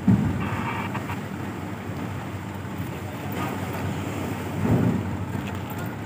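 Low, steady diesel engine rumble from the truck and the ferry, with wind buffeting the microphone. A heavy thump comes right at the start, and the rumble swells louder about five seconds in.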